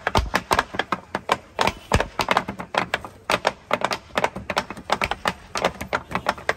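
Wooden rolling pins knocking and clattering on a wooden table as balls of dough are rolled out into thin rounds: a rapid, uneven run of sharp knocks, several a second, from more than one pin at once.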